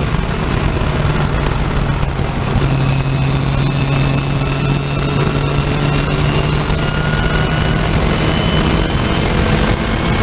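Racing saloon car's engine heard from inside the cockpit at speed over heavy wind and road noise, lifting through a fast corner and then pulling hard again, its revs rising steadily from about three seconds in.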